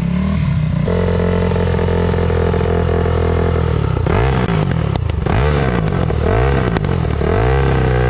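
Honda CR250F dirt bike engine running at a fast idle. About halfway through, the throttle is blipped several times and the revs rise and fall, then it settles back to a steady idle. The carburettor has just been rebuilt and the air-fuel mixture is not yet right, so the throttle has to be held open to keep it idling.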